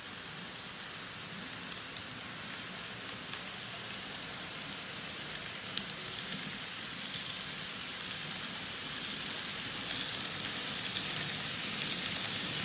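N-scale model train, a diesel locomotive pulling hopper cars, running on the layout's track: a steady hiss of wheels and motor with light clicking of wheels over the rail joints. Both grow louder, and the clicks come more often, in the second half.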